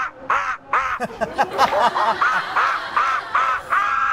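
A man imitating a monkey: a quick run of hooting calls, each rising and falling in pitch, about three a second, with a more jumbled stretch about a second in.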